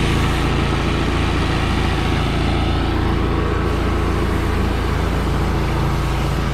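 A large engine running steadily at constant speed, mostly low-pitched, typical of farm machinery being readied for harvest.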